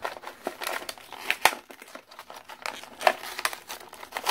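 Toy packaging being handled and opened: irregular crinkling and crackling with sharp snaps, as the Hot Wheels car pen is unboxed.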